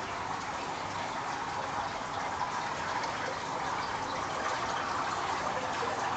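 Water running steadily into an in-room plunge pool, a continuous even rush of water.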